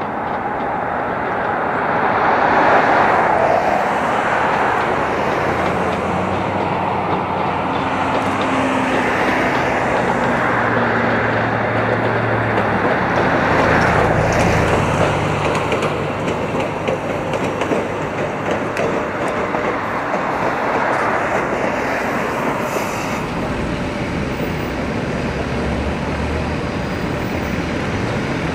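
Vintage streetcar running along its rails, a continuous rumble of wheels on track that grows louder around the middle.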